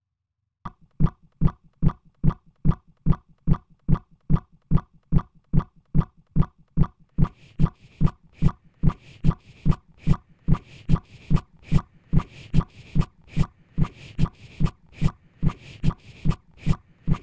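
Beatboxed kick-drum loop playing back from a loop station: a steady, evenly spaced thump a bit over twice a second. About seven seconds in, a second, hissier layer like a snare or hi-hat joins the loop.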